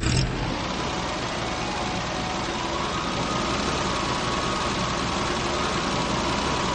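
Vehicle engine sound effect running steadily, an even rumble with a faint high hum.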